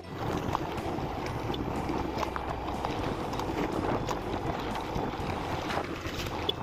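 Motorcycle being ridden: engine running steadily under road noise, with wind rushing over the microphone.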